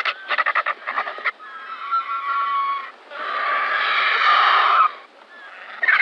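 Griffon vulture (Gyps fulvus) calling with harsh, rasping calls: a quick rattling run, then a longer drawn-out harsh call that breaks off about five seconds in, and another rattling run starting near the end.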